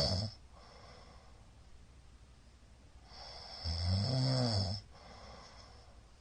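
A middle-aged man snoring in his sleep, loudly: the tail of one snore at the very start, then a single long snore about three seconds in that lasts under two seconds, its pitch rising and then falling. Quieter breathing between the snores.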